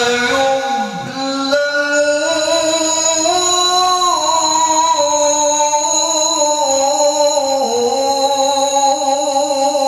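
A male qari reciting the Quran in the melodic tilawah style into a microphone, holding one long ornamented phrase whose pitch drifts slowly up and down.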